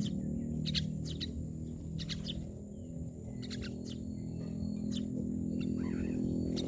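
Myna birds giving short, sharp chirping calls about once a second, with a longer, more varied call near the end, over a steady low hum.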